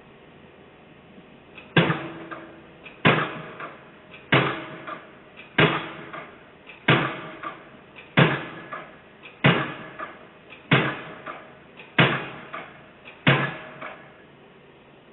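Excavator-mounted piling hammer driving a foundation pile: ten heavy, evenly spaced blows about 1.3 seconds apart, each ringing out briefly. The blows start about two seconds in and stop near the end.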